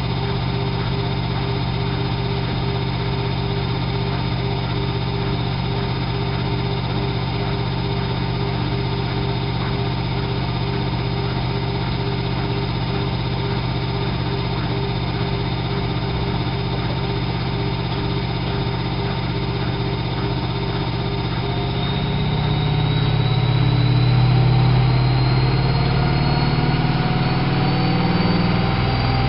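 Whirlpool AWO 5346 washing machine running with a steady mechanical hum. About 22 seconds in, the drum motor speeds up: a rising whine, and the sound grows louder.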